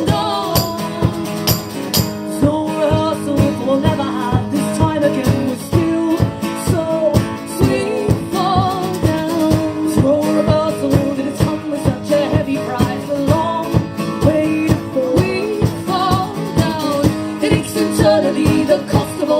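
Live folk-rock band music: strummed guitar over a steady driving beat, with a melody line that wavers in pitch.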